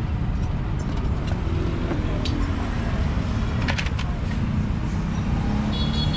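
Street ambience with a steady rumble of passing traffic, and a few sharp metallic clinks about two and nearly four seconds in.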